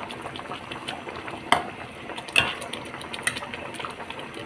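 Metal spatula scraping and clinking against a wok as a curry sauce is stirred while it simmers, with soft bubbling underneath. Two sharper clinks stand out, about one and a half and two and a half seconds in.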